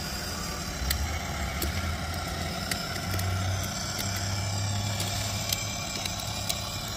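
6-volt battery-powered ride-on toy ATV driving slowly on asphalt: a steady low electric motor and gearbox hum with the rumble of its plastic wheels on the pavement and scattered small clicks. It runs slow on a battery that the owner thinks is nearly flat.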